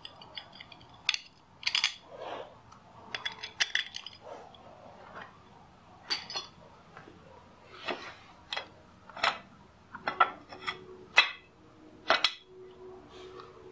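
Irregular metallic clinks and taps, a dozen or so, some with a brief ring: hand tools and loose engine parts being handled on a Honda GL1100 Gold Wing's cylinder head during teardown.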